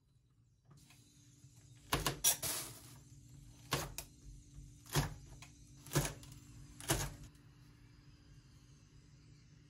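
Kitchen knife cutting sausage on a cutting board: about seven sharp knocks of the blade on the board, three quick ones about two seconds in, then single chops roughly a second apart.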